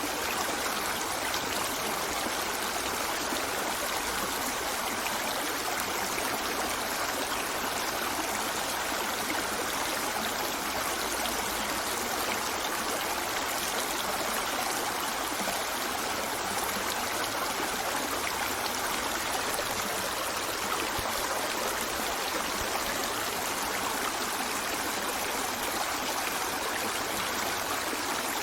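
River water flowing steadily over rocks, an even rushing with some trickling.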